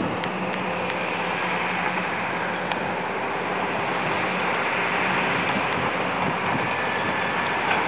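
Heavy diesel earthmoving machinery running steadily, a large Hitachi 800H hydraulic excavator working as it loads a Volvo articulated dump truck, with a constant low engine hum under a dense mechanical wash.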